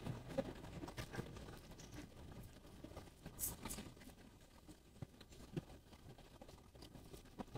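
Faint, scattered small clicks and taps of someone eating quietly, with a couple of brief sharper ticks about halfway through.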